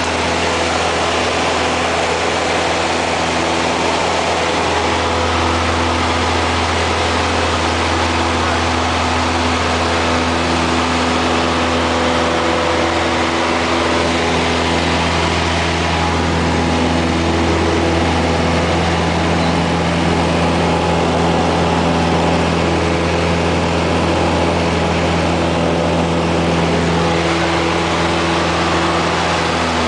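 Single-engine light aircraft's piston engine and propeller heard from inside the cockpit, running steadily and loud, its pitch shifting slightly a few times.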